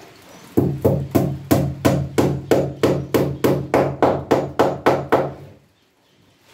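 About fifteen hammer blows in a steady run, roughly three a second, nailing a plastic drum to the boat's wooden frame, with a low hollow ring from the drum under the blows. The hammering stops about a second before the end.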